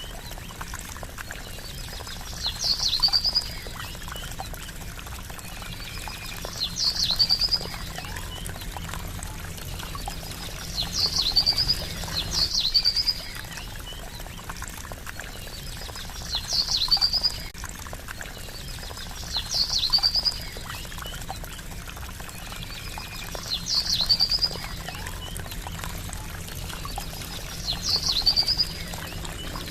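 Gently trickling water, with a small bird repeating a short, high trilling call every three to four seconds.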